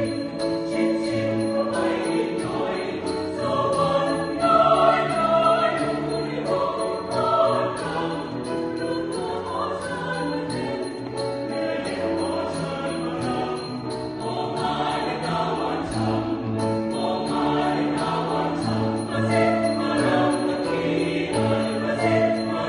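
Mixed choir singing a Thai ramwong song in Western-style choral harmony, with a light, regular percussive beat.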